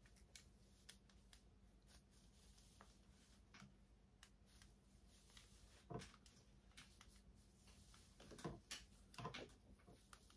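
Near silence: faint room tone with a few scattered soft clicks and rustles, a little stronger about six seconds in and again near the end.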